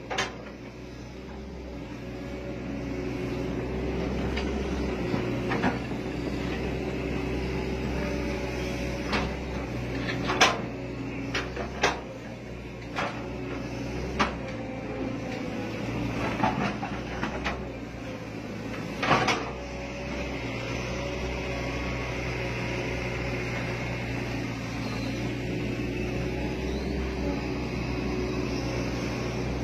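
Excavator's diesel engine running steadily, heard from the operator's cab, with scattered sharp clanks and knocks from the bucket and boom as it digs into the mud, the loudest about a third of the way in and again past the halfway mark.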